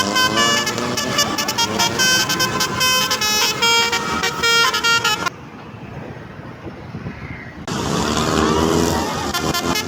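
Basuri telolet multi-trumpet air horn on an Indonesian bus, playing a quick melody of shifting high notes. It breaks off about five seconds in, leaving quieter background noise for about two seconds, then plays again.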